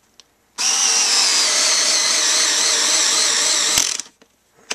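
Genesis 7.2-volt lithium-ion cordless screwdriver running steadily for about three seconds as it drives a screw into wood. The motor starts abruptly about half a second in and stops with a sharp click near the end.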